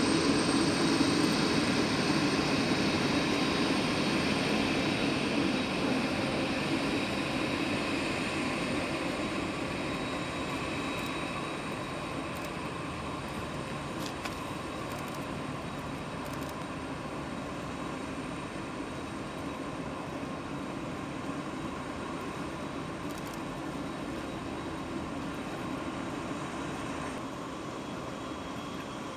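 Boeing 787-8 jet engines, fading away over about twelve seconds and then settling into a steady, fainter rush with a thin high whine.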